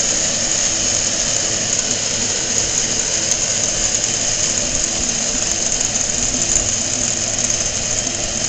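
A small engine running steadily at low speed, mixed with even road and wind noise while moving.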